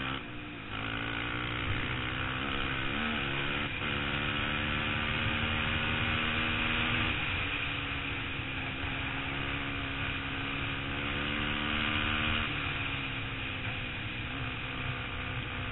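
Sport ATV's single-cylinder four-stroke engine running hard at road speed. It shifts up in the first few seconds, runs steadily, drops in pitch at another shift about seven seconds in, and eases off near the end. Wind rumbles on the microphone throughout.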